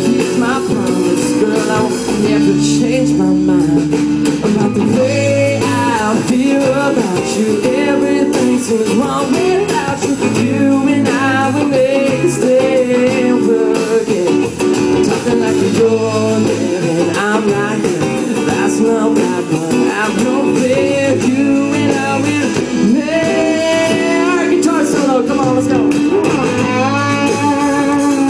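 Song with guitar and bass in a bluesy style, a guitar-led passage with no lyrics picked up, with bending, wavering notes.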